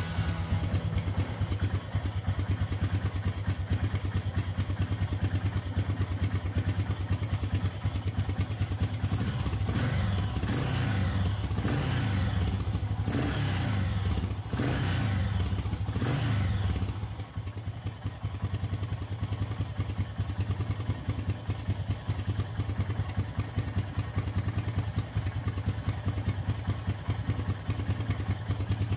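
Yamaha SRX single-cylinder four-stroke engine idling. About a third of the way in, it gets several quick throttle blips, each rev rising and falling, then settles back to a steady idle.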